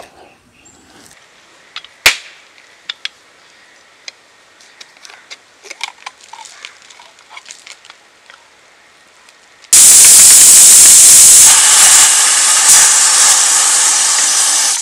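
Pressure cooker whistle: about ten seconds in it suddenly starts letting off steam in a loud hiss with a faint whistling tone, a sign that the beef inside has come up to pressure. Before that, scattered sharp knife taps on a wooden chopping board.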